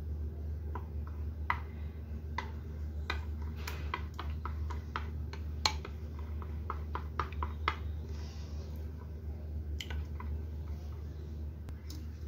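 Steel spoon stirring thin jowar flour batter in a glass bowl, clinking and tapping against the glass in quick irregular strokes that thin out and stop near the end.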